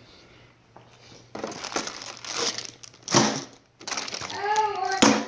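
Plastic packaging crinkling and rustling in irregular handfuls as the tool set's parts are handled, with a sharp knock about three seconds in.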